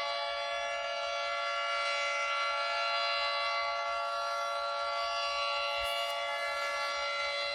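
Emergency Alert System attention signal played in reverse: a steady electronic alarm tone with several pitches sounding together, holding without change.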